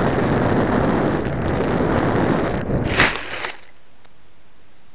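Air rushing over the microphone of an RC foam plane's onboard keychain camera as it skims low. About three seconds in comes a sharp crunch and a brief rustle as the plane crashes into tall dry grass, then only a steady faint hiss.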